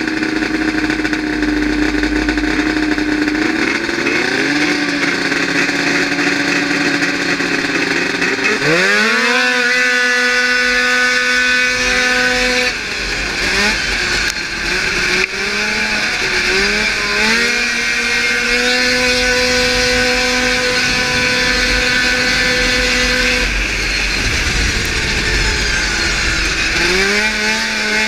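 Racing snowmobile engine (600 class) heard from the rider's seat: running at a steady lower pitch, then about nine seconds in revving up sharply and holding high revs, with brief dips as the throttle comes off. It falls back again partway through and climbs once more near the end.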